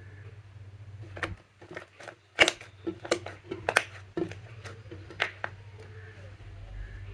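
Slime being squeezed and mixed by hand, giving an irregular run of sticky clicks and pops, the loudest about two and a half seconds in, over a faint low hum.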